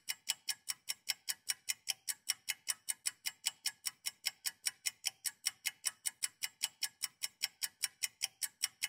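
Clock ticking, fast and even at about five ticks a second: a ticking-clock effect marking the batter's 10-minute rest.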